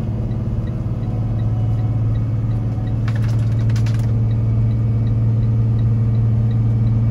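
Diesel engine of a Super C motorhome on a Freightliner chassis, heard from inside the cab: a steady low drone with road noise, growing a little louder after about a second. A faint regular tick comes a little over twice a second.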